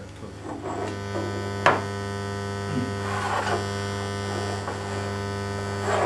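Steady electrical buzz from the microwave receiver's amplifier speaker, the audible sign of how much microwave signal reaches the receiver. It swells about a second in as the wire-grid polariser in the beam is turned, then holds steady, with one sharp click of the grid being handled.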